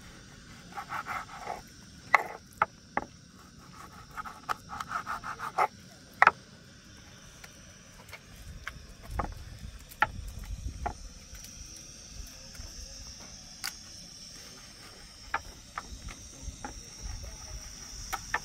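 Scattered sharp knocks of stones being set and shifted in a stone wall, with a couple of short scraping passes early on. Insects chirr steadily behind them, louder in the second half.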